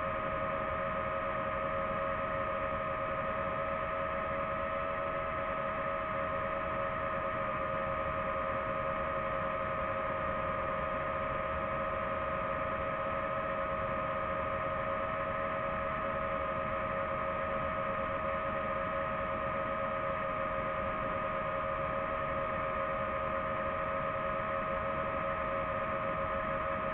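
Quadcopter drone's rotors humming steadily while it hovers, as picked up on board: a constant two-note whine over a rushing noise, with no change in pitch or level.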